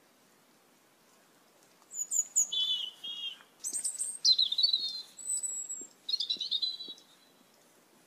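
Asian glossy starling calling: three groups of short, sharp, high chirps and whistles, several sliding down in pitch, starting about two seconds in and stopping about a second before the end.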